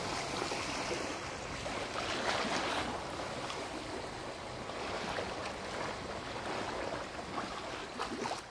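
Seawater rushing and washing along a sailing yacht's hull under sail: a steady wash that swells a little about two to three seconds in.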